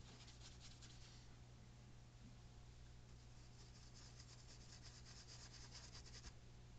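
Faint scratchy rubbing of a paintbrush worked in quick back-and-forth strokes, in two spells: one around the first second and a longer one from about three seconds in until shortly before the end. A steady low hum runs underneath.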